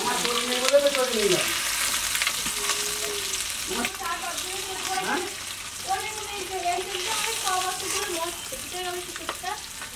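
Masala-coated mrigal fish steaks sizzling in oil in an aluminium kadai on a low flame, with a few sharp clicks of a long metal spoon against the pan as fried pieces are lifted out.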